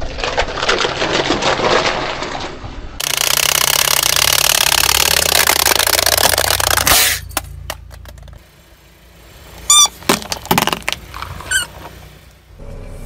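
A car tyre rolls over a row of plastic cups, which crackle and crunch as they split for about three seconds. The tyre's rolling over rough asphalt then gives a steady loud hiss. After some scattered clicks, spiky rubber toy balls give two short high squeaks as the tyre squashes them.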